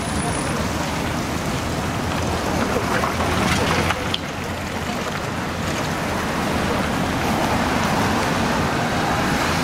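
Strong storm wind rushing over the microphone, mixed with the tyre and engine noise of cars driving past on a city street.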